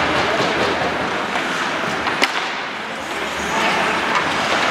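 Spectators chattering in the background, with one sharp smack of an impact about two seconds in.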